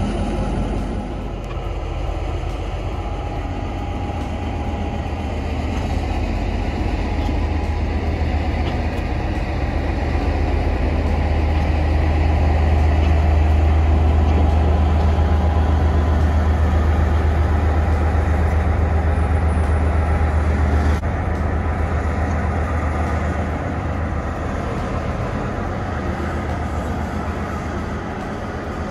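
R157 diesel-electric locomotive's engine running with a steady deep hum as the locomotive moves off the turntable toward its roundhouse stall. The engine grows louder about halfway through, then drops back suddenly about three quarters of the way in.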